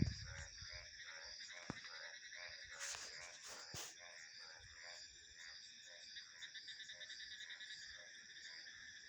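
Frogs calling in a chorus of repeated croaks, about two a second, over a steady high trilling of crickets and insects. There is a knock at the very start and a few sharp clicks about three to four seconds in.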